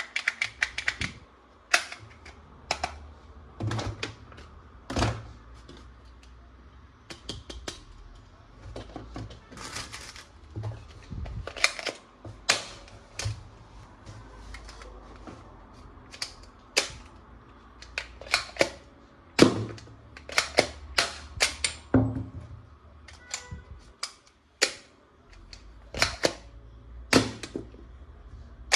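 Toy guns' plastic parts clicking and snapping as they are handled and worked: irregular sharp clicks, some single and some in quick clusters of several.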